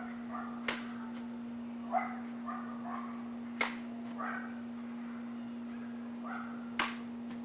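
Three sharp cuts of an Albion Baron longsword through a soaked tatami omote mat, about three seconds apart. A dog barks and yips repeatedly in the background over a steady low hum.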